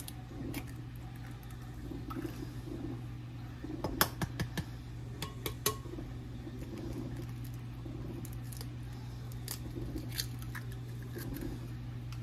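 Eggs being cracked into a plastic mixing bowl: a cluster of sharp eggshell cracks and taps about four to six seconds in, with a few lighter clicks later as shells are set down. A steady low hum runs underneath.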